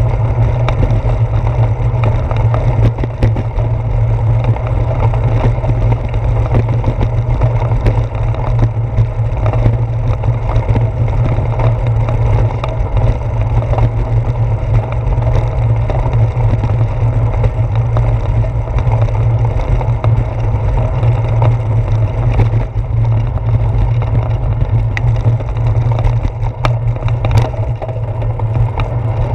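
Bicycle rolling over a brick-paved street, heard through a handlebar-mounted camera: a steady low rumble of road vibration with constant fine rattling and clicking.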